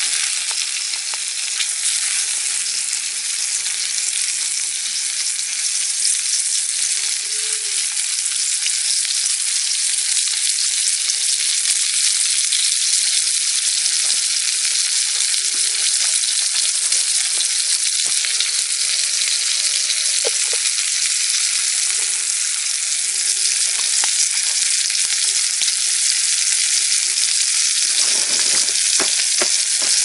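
Meatballs frying in a cast iron pan over a campfire, a steady loud sizzle, with a few soft knocks near the end.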